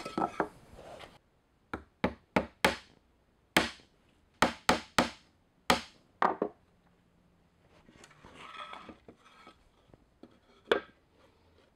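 Claw hammer driving nails into a cedar fence board: about ten sharp blows in short runs over a few seconds. Then the wood is shuffled on the bench, and there is one more knock near the end.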